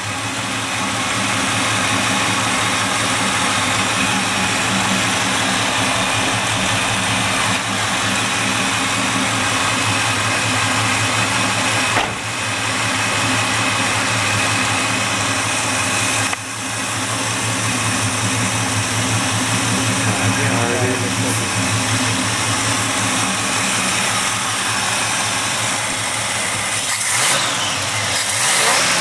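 1972 Chevrolet Impala's 400 small-block V8 idling steadily with the hood up. Near the end it is revved briefly by hand at the carburetor throttle linkage.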